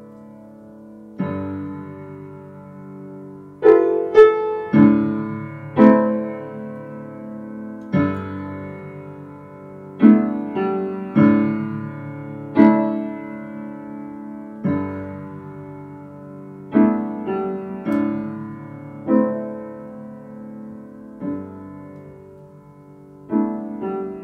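Slow solo piano music: single notes and chords struck every second or so, each ringing out and fading.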